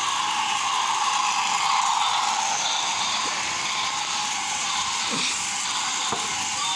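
Int'l Express toy train running steadily around its plastic track: a continuous mechanical whir and rattle of its small motor, gears and wheels, with a few faint clicks in the second half.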